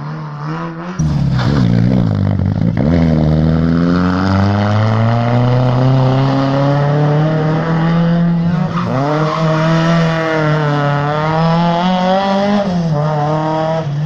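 Rally car engine revving hard as the car passes, coming in loud about a second in. Its pitch climbs steadily, dips sharply about nine seconds in, climbs again, then falls near the end.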